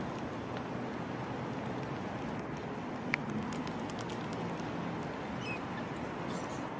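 Steady outdoor background noise with scattered faint clicks and one sharper click about three seconds in.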